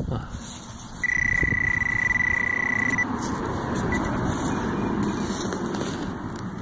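A metal detector sounds one steady high beep for about two seconds, a signal of metal in the dig. Scraping and rustling noise of digging in soil runs on under and after it.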